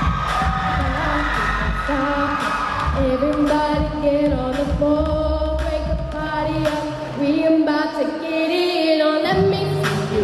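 A group of women singing a pop-style show song over a backing track with a steady beat and bass.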